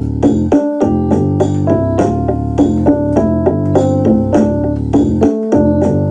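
Music: a piano-like keyboard instrument playing a quick, steady run of notes over a sustained low bass.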